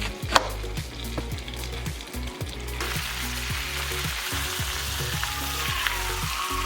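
Food sizzling in a frying pan, the sizzle growing louder about three seconds in, over background music with a low bass line. A sharp click sounds near the start.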